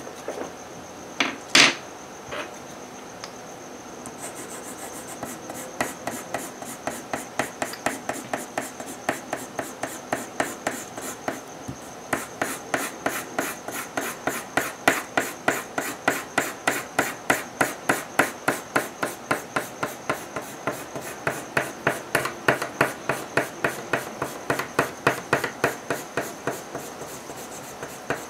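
Coloured pencil shading on paper in quick back-and-forth strokes, about four a second, growing stronger about halfway through. A couple of sharp knocks come just after the start.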